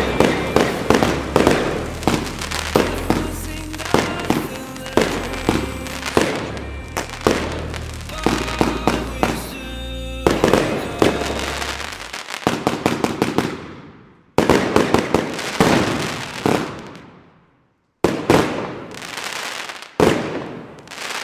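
Röder Alpha Centauri firework compound cake firing shot after shot, with sharp bangs over electronic dance music with a steady bass beat. The music stops about twelve seconds in. After that come three separate loud bursts, each dying away over a second or two.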